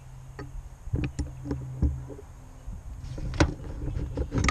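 Scattered clicks and knocks from a nut driver and hands working the upper radiator hose and its clamp off a tractor radiator's metal neck, the sharpest knock about three and a half seconds in. A low wind rumble runs under it on the microphone.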